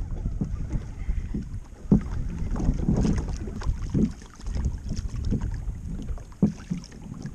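Wind buffeting the microphone and water slapping against a fishing kayak's hull, with a few dull knocks.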